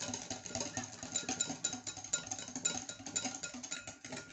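A wire whisk beating egg and sugar in a bowl: rapid, uneven clicking of the wires against the bowl, over background music.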